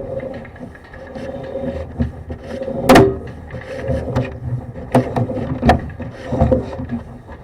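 Sewer inspection camera's push cable being fed down a drain line: irregular knocks, rattles and rubbing, the sharpest knock about three seconds in, over a faint steady hum.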